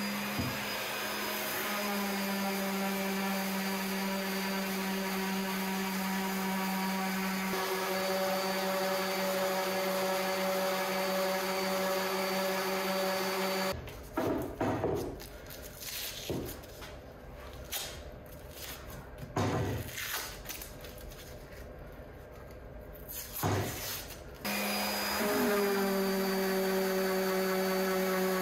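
Electric random orbital sander running steadily with a constant hum as it sands the wooden pickaxe handle, then switching off about halfway through. Masking tape is then peeled off and handled with irregular rustling and crackling. Near the end the sander starts up again on the handle.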